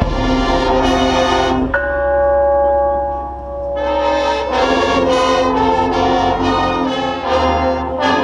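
Marching band brass section playing loud, full chords: a held chord, then from about four seconds in a run of short, accented chords.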